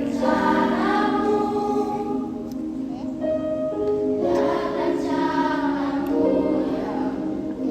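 A children's choir singing in unison, holding long notes in phrases.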